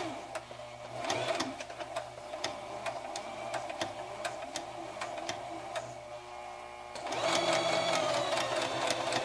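Brother XL2600 sewing machine stitching a blind hem, its needle mechanism clicking at each stitch in a steady rhythm. It gets louder about seven seconds in.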